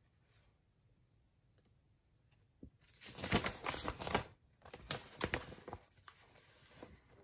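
Paper pages of an instruction booklet being turned by hand: rustling and crinkling that starts about three seconds in, loudest for the first second or so, then fainter rustles.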